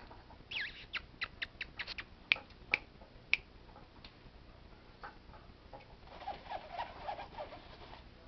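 A quick run of sharp clicks and taps as a Persian kitten bats at a toy hanging on a string, the toy knocking about against the wooden wall panelling. About six seconds in come softer scratchy rustles.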